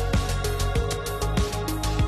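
Background electronic music with a steady kick-drum beat under held synth notes.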